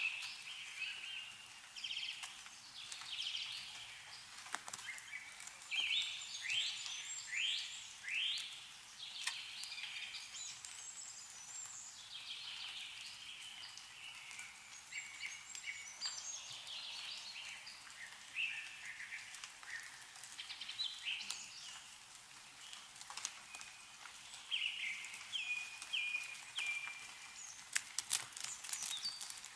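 Several small songbirds chirping and calling, with short downward-sweeping notes, against the drip of melting snow from trees, heard as a few sharp ticks.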